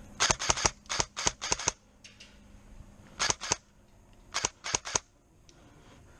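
Airsoft guns firing strings of sharp cracks: about nine shots in the first second and a half, three more a little after three seconds in, and four more about a second after that.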